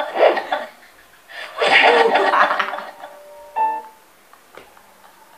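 A man laughing hard, mixed with a snatch of music and sound from a cartoon meme clip. A loud stretch of laughter and clip audio comes about a second and a half in, a short held note follows, and the rest is quiet.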